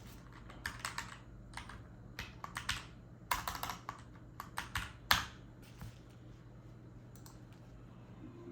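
Keychron K10 mechanical keyboard being typed on: irregular runs of key clicks for about six seconds, then the typing stops.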